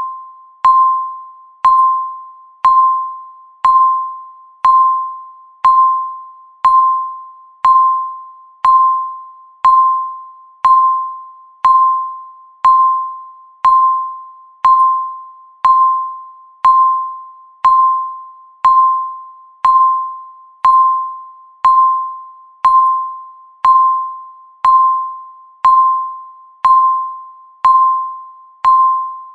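Countdown timer beep: a short pitched electronic tone that starts sharply and fades quickly, repeating steadily once every second to mark each second of the countdown.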